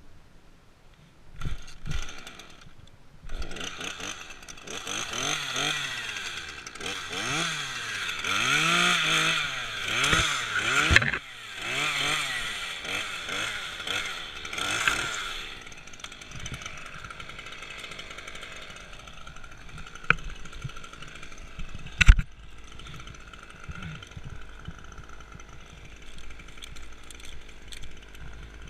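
Two-stroke chainsaw revving up and down repeatedly for about ten seconds, then dropping back to a quieter level; two sharp knocks come in the second half.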